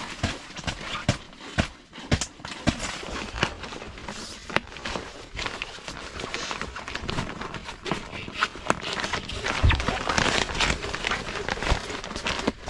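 Irregular knocks, clicks and rustling of things being handled and moved about, with a louder burst of rustling near the end.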